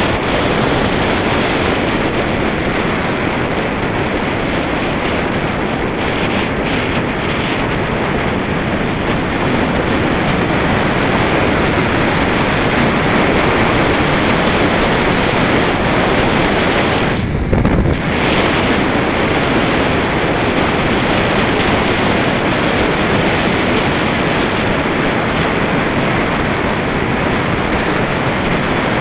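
Steady rush of wind buffeting the microphone of a camera on a fast-moving bicycle, mixed with tyre noise on asphalt. A brief low thump comes a little over halfway through.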